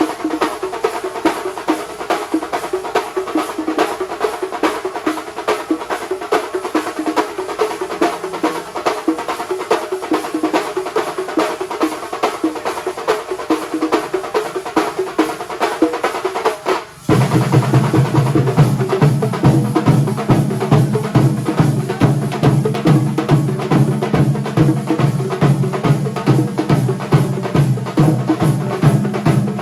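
Kerala thambolam percussion ensemble playing dense, rapid drumming like a continuous roll. About seventeen seconds in there is a brief break, then deep bass drums come in and the playing gets louder.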